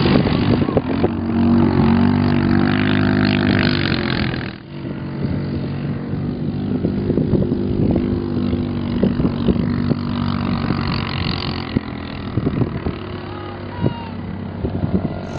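Quad bike (ATV) engine running steadily, with crackles and knocks over it. The sound drops abruptly about four and a half seconds in, then the engine goes on more quietly.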